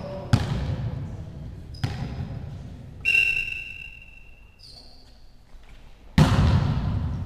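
Volleyball thuds echoing in a sports hall: two sharp ball knocks in the first two seconds, then a referee's whistle blown for about a second and a half, about three seconds in, signalling the serve. About six seconds in, a jump serve is struck with a loud smack, and loud hall noise follows.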